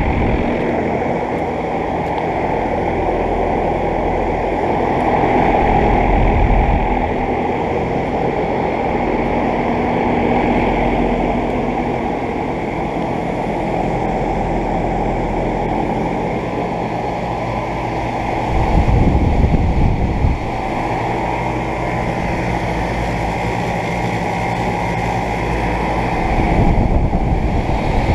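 Outdoor central air conditioner condensing units running: a steady whoosh of the condenser fans over a low compressor hum. There are two brief low rumbles, one about two-thirds in and one near the end.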